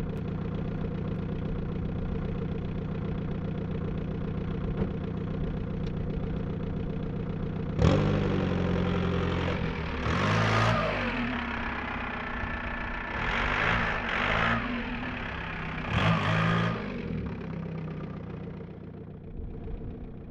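Seat León 1M 1.9 TDI diesel engine idling steadily, then revved in about five sharp blips from about eight seconds in, each falling back toward idle. The sound fades near the end.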